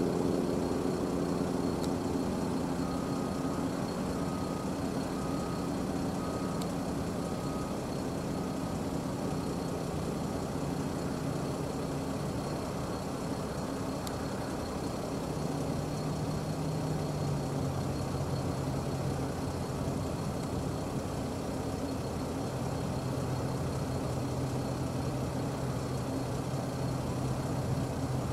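Brantly B-2B light helicopter flying past: its piston engine and rotor give a steady drone whose pitch drops about halfway through as it goes by.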